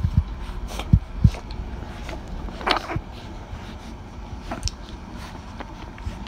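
Rottweiler puppies suckling milk, with wet sucking and slurping noises and a few low knocks about a second in as they jostle against the camera.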